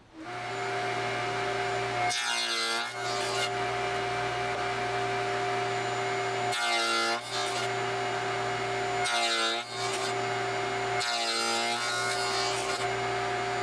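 Table saw with a dado stack spinning up, then running with a steady hum. The stack cuts box-joint fingers four times, each pass a harsh, brief sawing sound as it bites into two clamped boards held upright in a finger-joint jig: about 2 seconds in, near 7, near 9, and around 11 to 12 seconds.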